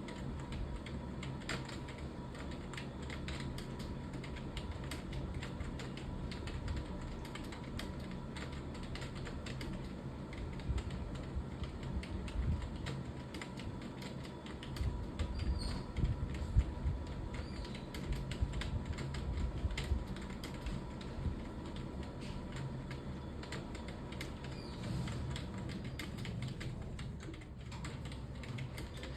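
Continuous typing on a computer keyboard: a fast, uneven patter of key clicks, with a few heavier key strikes about halfway through.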